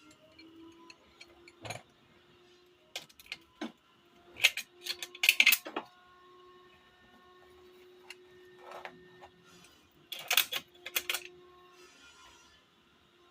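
Loose metal parts being handled: scattered clicks and two short bouts of bright metallic clattering, over a faint steady hum.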